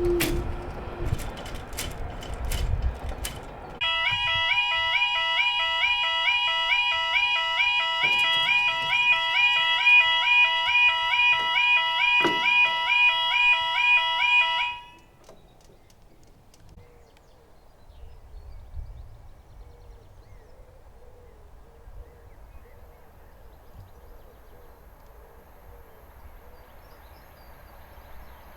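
Level crossing audible warning alarm: a loud warbling yodel tone over a steady beep, starting about four seconds in and cutting off suddenly some eleven seconds later. A low rumble fades out before it starts, and quiet outdoor background follows.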